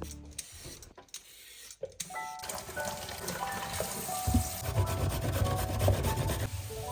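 Steady rubbing or scrubbing noise starting about two seconds in, with faint music under it.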